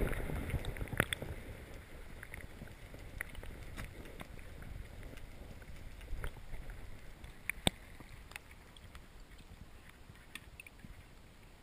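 Water lapping against a kayak hull, with a low wind rumble on the microphone and scattered small knocks and clicks, the sharpest about two-thirds of the way through.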